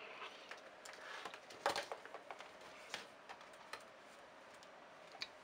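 A few faint, scattered clicks and taps of equipment being handled, with the clearest about two seconds in, over low hiss.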